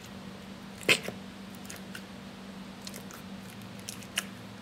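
Slime being pressed back into its plastic container: one sharp click or knock about a second in and a few fainter clicks later, over a steady low hum.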